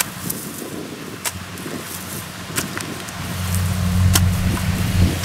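Engine of a rice harvester running with a steady low drone that grows louder past the middle, with a few sharp clicks.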